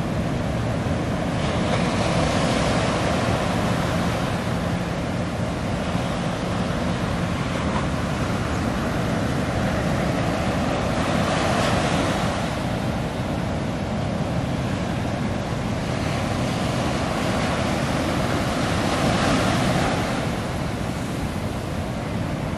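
Ocean surf breaking and washing on the beach, swelling louder about three times, with wind buffeting the microphone. A boat's outboard motors hum faintly underneath as the boat heads out beyond the breakers.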